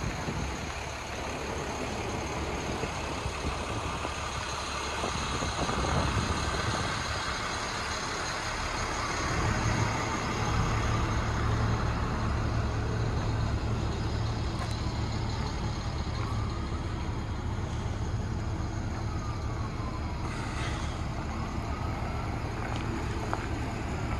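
Engine of a 2008 Chevrolet cube truck idling, a steady low hum that grows louder and steadier about ten seconds in.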